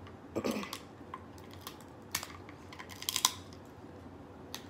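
Crab leg shells being cracked and picked apart by hand: scattered sharp clicks and snaps, the loudest cluster about three seconds in. A brief vocal sound comes about half a second in.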